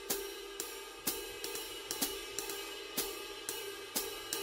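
Background music with a light beat of hi-hat ticks, about two a second, over a held note.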